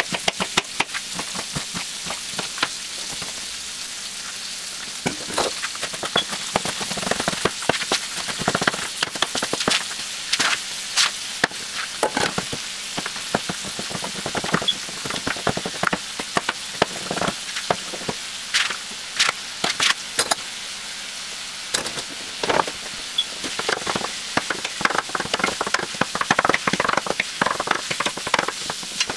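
Sausage frying in hot olive oil in a stainless steel pot, a steady sizzle. Over it come frequent sharp, irregular knocks of a knife chopping onion and mushrooms on a cutting board.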